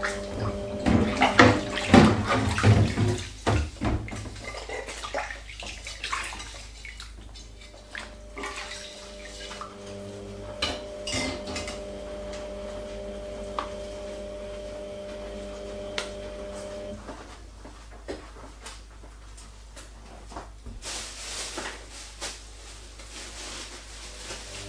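Washing up by hand: dishes and cutlery clattering and knocking in a sink of soapy water, loudest in the first few seconds, then quieter scattered knocks and a rustle near the end.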